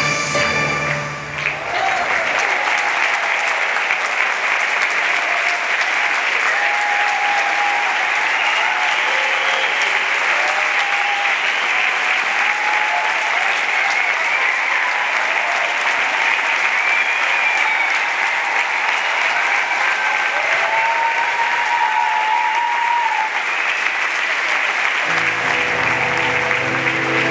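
Audience applauding steadily for over twenty seconds after the show music stops about a second and a half in; music starts up again near the end.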